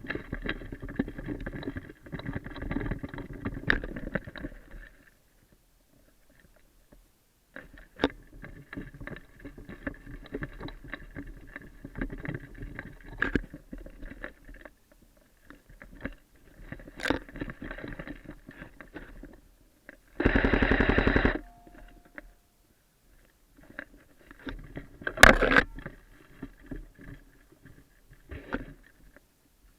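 Airsoft guns firing: a few single sharp shots spaced several seconds apart and one burst of automatic fire lasting about a second, about two-thirds of the way through, between stretches of rustling noise.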